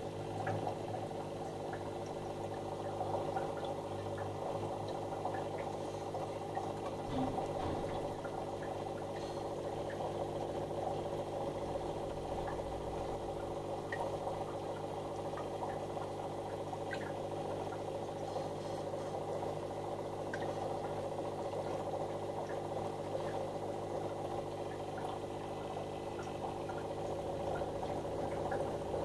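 Aquarium equipment running: a steady hum over continuous moving water, with faint scattered ticks.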